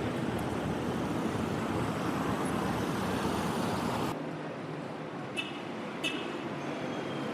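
Steady vehicle and traffic noise. About four seconds in it cuts abruptly to a quieter stretch, with two short clicks and a faint falling whistle near the end.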